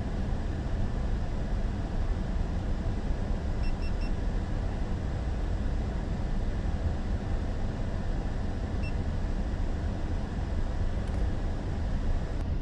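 Steady low rumble of the Airbus A380 flight deck in flight, the hiss of airflow and air conditioning. Three quick high beeps sound about four seconds in, and one more near nine seconds.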